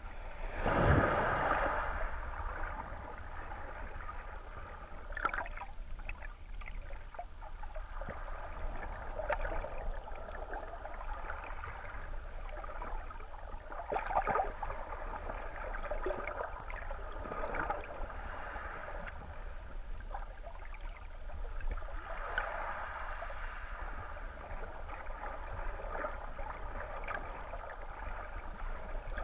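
Muffled underwater water noise heard through a GoPro Hero 3 Black's waterproof housing: water surging and swirling in the shallows under a constant low rumble, swelling and fading every few seconds, with a louder whoosh about a second in.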